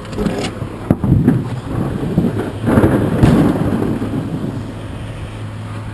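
Scrap metal appliances being dumped onto a scrap pile: sharp metal bangs about a second in, then a loud rumbling crash around three seconds in that trails off. A steady low hum runs underneath.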